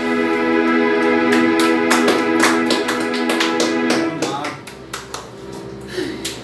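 Closing chord of the song's instrumental accompaniment, held steady and dying away about four seconds in. Scattered sharp claps sound over it, with a few more near the end.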